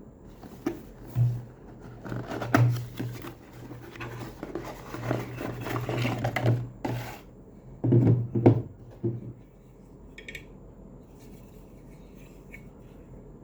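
Handling noises: a run of clicks, knocks and rubbing, loudest in two clusters, the second about eight seconds in, then quiet with a few faint ticks.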